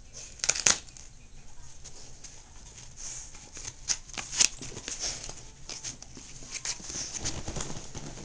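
A dog chewing and tearing at a fabric toy: irregular sharp clicks and short rasping rips, loudest about half a second in and twice around four seconds in.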